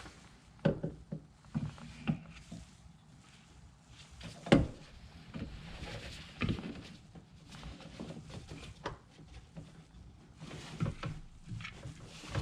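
Scattered knocks and clicks of hard plastic parts being handled and pushed together while a coolant expansion tank's level sensor is fitted, with one louder knock about four and a half seconds in.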